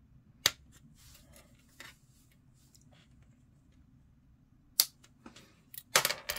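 Sharp clicks of a plastic model-kit sprue being handled and a part clipped free: single clicks about half a second in and near five seconds, then a quick cluster of clicks near the end.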